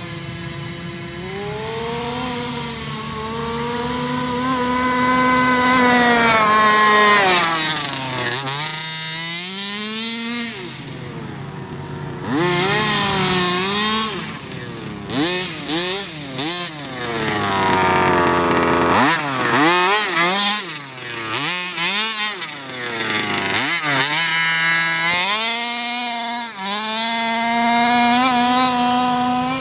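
29 cc two-stroke petrol engine of a Baja RC buggy, revving up and dropping back again and again as the car accelerates and slows across grass. About halfway through it gives several quick throttle blips in a row.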